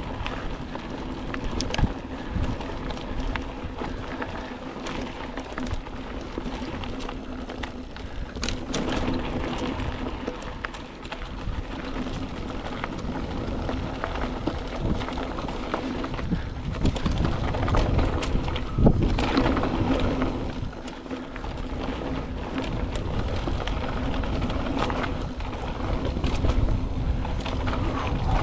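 Mountain bike running fast down a dirt single-track: steady tyre and chassis rattle over the rough ground, with sharp knocks from hard hits on bumps, loudest about two-thirds of the way through.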